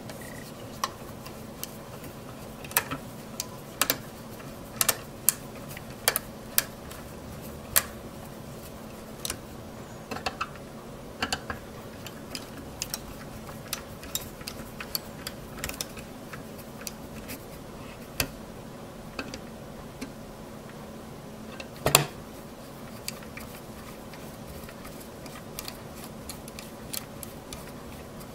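Small precision Phillips screwdriver driving screws into a graphics card's metal heatsink X-bracket: irregular light clicks and ticks of metal on metal, with one louder knock about two-thirds of the way through. A faint steady hum lies underneath.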